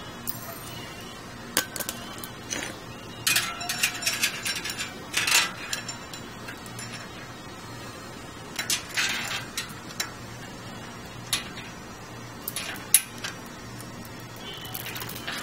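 Metal roller drive chain clinking and rattling as it is handled and fed onto the rear sprocket, in short irregular bouts of clicks with pauses between.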